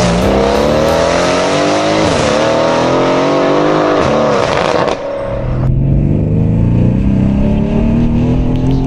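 Mercedes-AMG C63 S twin-turbo V8, fitted with an Akrapovic cat-back and IPE decat downpipes, accelerating hard. Its exhaust note climbs in pitch and drops back twice at upshifts, at about two and four seconds. About five seconds in, the sound turns duller: the same engine heard from inside the cabin as a steady drone, slowly rising with speed.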